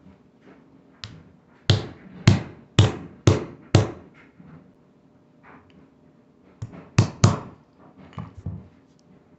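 A hammer taps on a wooden stick to press a new bearing into a quad skate wheel. One light tap is followed by five firm taps about two a second. After a pause come two more firm taps among a few lighter ones.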